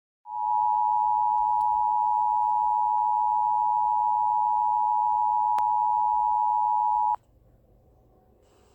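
Emergency Alert System attention signal: a steady two-tone alarm, a pair of close tones just below 1 kHz, held for about seven seconds and then cut off abruptly, leaving faint hiss. It heralds a tornado warning broadcast. A single click is heard about five and a half seconds in.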